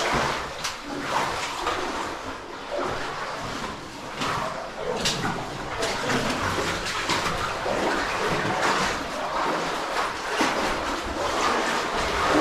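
Water splashing and sloshing in uneven surges, as in a cave stream.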